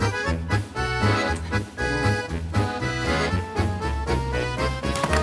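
Background instrumental music with a steady bass beat.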